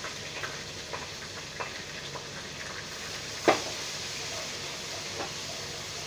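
Sliced onions and ginger-garlic paste sizzling in hot oil in a pan, with a spoon stirring and clicking against the pan now and then. A single sharp knock of the spoon on the pan, about three and a half seconds in, is the loudest sound.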